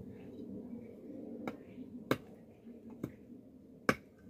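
A large knife blade chopping into a wooden stick: four sharp chops about a second apart, the last one the loudest.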